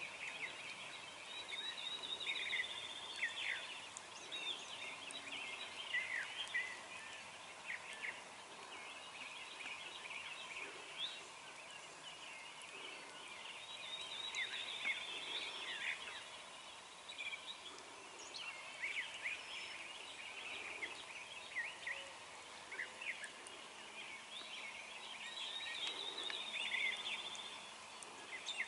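A wild turkey tom gobbling at times over a chorus of songbirds singing and chirping.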